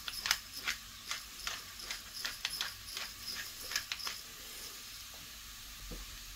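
Hand-twisted pepper mill grinding black pepper: a run of irregular clicks, a few a second, that stops about four seconds in. Under it, grated radish sizzles faintly in the frying pan.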